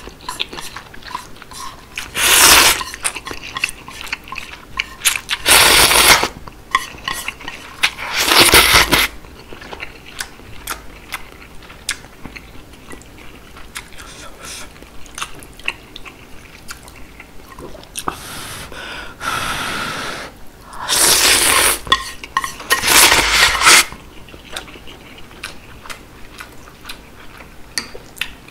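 Close-miked slurping of ramen noodles and seaweed soup: six loud slurps, each under a second, in two groups of three, with wet chewing and small mouth clicks in between.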